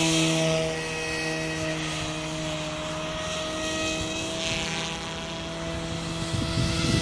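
SAB Goblin Fireball electric RC helicopter in flight, its rotor and motor giving a steady hum of several tones. A sweeping whoosh comes as it passes nearest, at the start and again about four seconds in.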